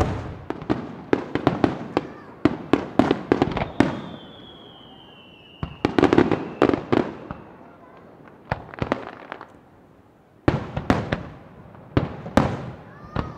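Aerial firework shells bursting in rapid clusters of sharp bangs, easing off for a couple of seconds and then starting again in a fresh volley near the end. A long, slowly falling whistle runs through the middle.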